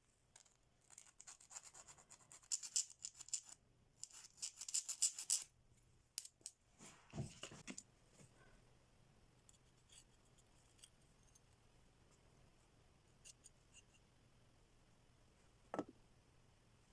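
Scratchy rubbing and scraping strokes, in two spells over the first five seconds or so, typical of hand work on a metal knife blank. About seven seconds in comes a dull knock, and a single click follows near the end; the rest is faint.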